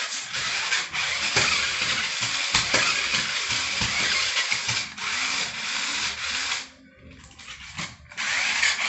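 Small electric drive motors and plastic gearboxes of a toy RC rock crawler whirring as it drives and climbs against a wall. The whirr drops away for about a second near the end, then starts again.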